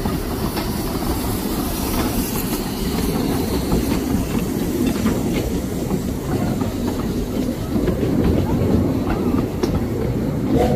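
Open passenger carriages of a miniature railway train rolling past close by: a steady rumble of wheels on the track with light clicking over the rail joints.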